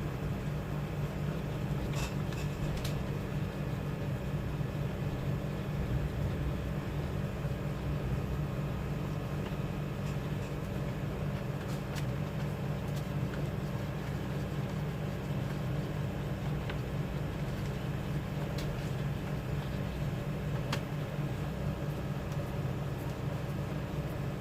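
A steady low mechanical hum with a few faint ticks scattered through it.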